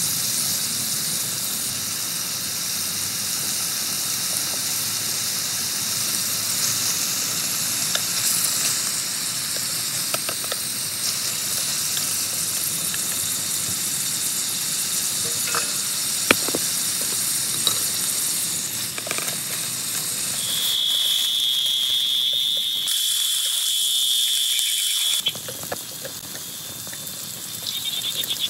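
Heavy rain falling steadily: a dense hiss with scattered sharp drips. About 21 seconds in a high thin trill joins for a few seconds, the rain drops off abruptly about 25 seconds in, and near the end a rapid pulsing high call starts up.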